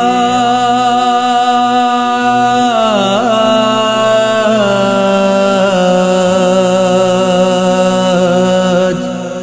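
A man's voice chanting soz, the Urdu lament for the martyrs of Karbala, in long drawn-out held notes that step down in pitch about three and about four and a half seconds in. The phrase fades near the end.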